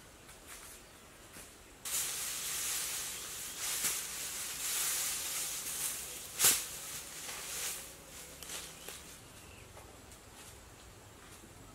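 Dry thatch grass rustling and scraping as a woven thatch panel is handled and pushed up onto a roof frame. The rustling starts about two seconds in and dies down after about eight seconds, with one sharp crack near the middle.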